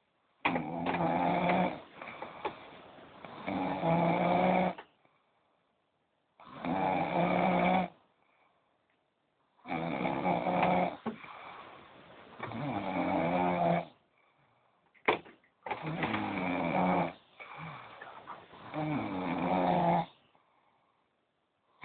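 A sleeping man snoring loudly. Each snore lasts about a second and a half and often comes in pairs: a loud snore, a quieter breath, then another loud snore, with short silent pauses between the pairs. A sharp click sounds once, about fifteen seconds in.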